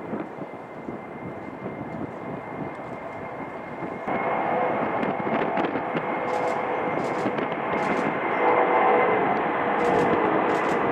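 Boeing 747-400 freighter's four turbofan engines at takeoff thrust during the takeoff roll and rotation: a loud rushing roar with a steady high whine. It grows suddenly louder about four seconds in and louder again near the end.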